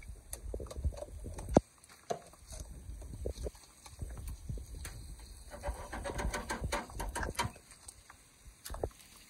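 Scattered knocks and clicks from handling a gas grill and the frying pan on its side burner, with one sharp knock about a second and a half in and a denser patch of crackling later on.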